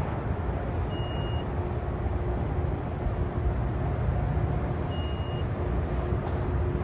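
Steady low rumble of vehicle engines and traffic, with a steady hum under it. Two short high-pitched beeps sound, one about a second in and one about five seconds in.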